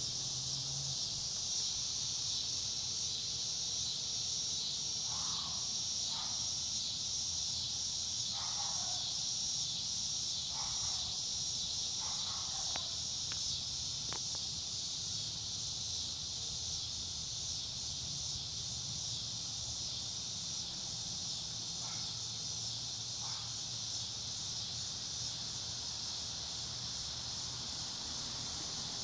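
Steady high-pitched insect chorus, with a few faint short calls scattered through it.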